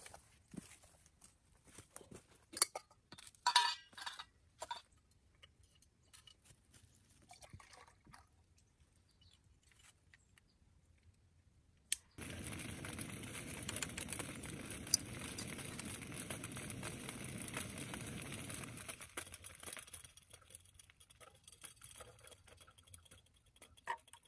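Metal camp cookware and utensils clinking and knocking as they are handled, then a steady hiss that starts suddenly and runs for about seven seconds before fading.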